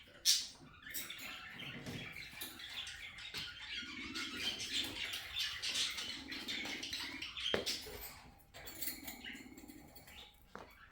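Small pets moving about in their enclosure: steady rustling and scratching, with a sharp knock just after the start and another about seven and a half seconds in.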